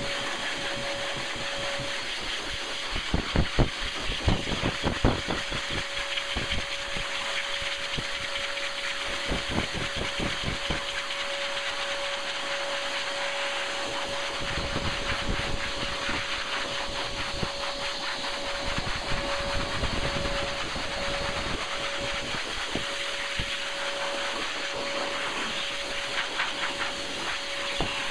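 Blow dryer running steadily: a constant rush of air with a steady motor whine, and the airflow gusting against the microphone in irregular low rumbles as it is worked through a puppy's thick coat.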